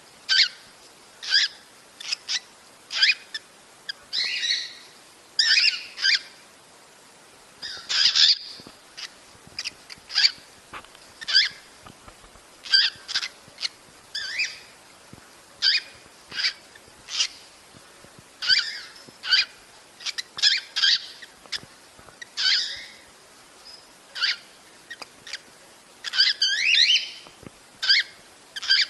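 Cockatiel mating calls: short, sharp chirps about once a second, broken by a few longer warbling phrases.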